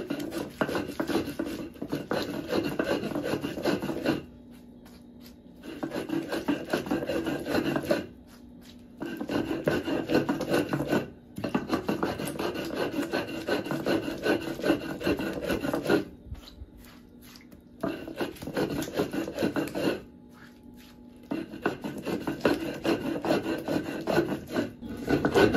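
A stone metate and its stone roller grinding wet, boiled tomato, chile, onion, garlic and cilantro into salsa: stone rasping over stone in rapid back-and-forth strokes. The strokes come in bouts of a few seconds, broken by brief pauses.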